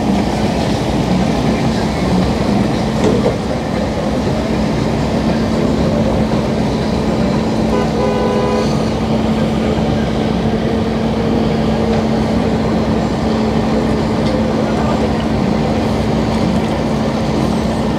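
Tow truck engine running steadily with a constant hum as its winch pulls a flooded pickup truck up the boat ramp. A brief horn-like toot sounds about eight seconds in.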